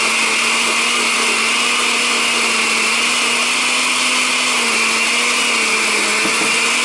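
Countertop blender running on high, blending basil pesto while olive oil is poured in: a steady motor whine with a whirring hiss over it. About two-thirds of the way through its note drops slightly, the change in sound that marks the oil and basil emulsifying into a sauce.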